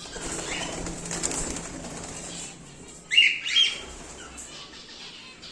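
Cockatiels flapping their wings, then two loud, short calls about three seconds in.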